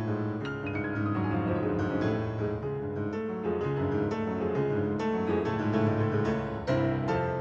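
Solo grand piano playing a flowing passage of notes over held low notes, with a louder chord struck near the end.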